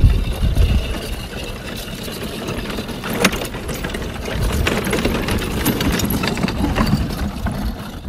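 Carriage cart rolling over dirt, its wheels and frame rattling steadily with many small clicks, over a low rumble of wind. A sharper knock comes about three seconds in.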